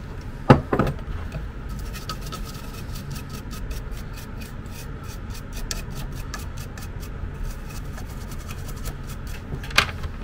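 A toothbrush scrubbing a printed circuit board, fast scratchy strokes about five a second, cleaning flux and residue off freshly soldered joints. A knock comes about half a second in, and a sharp tap near the end.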